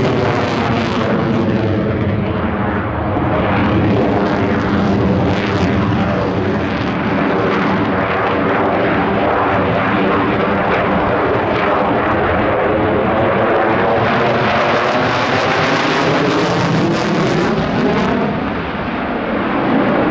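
Sukhoi Su-35S fighter jet flying past with its twin afterburning turbofans giving a loud, steady jet roar. As it passes, the roar takes on a slow sweeping, phasing quality, and it eases briefly near the end.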